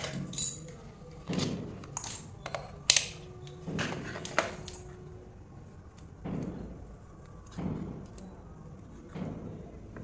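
Scattered knocks, clicks and short rustles of a digital multimeter and its probe leads being set down and handled, ending with the probe tip brought onto the LED plate.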